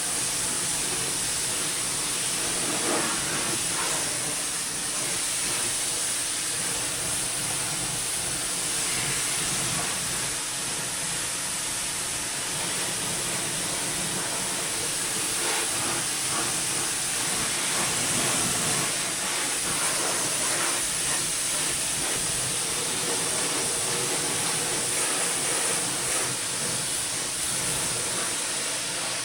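Pressure washer spraying a Can-Am ATV, a steady loud hiss of the water jet with the spray's sound shifting slightly as it plays over the machine.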